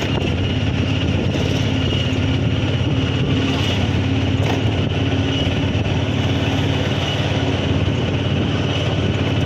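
A motor vehicle travelling at a steady speed, with its engine hum and rolling and wind noise running continuously without change.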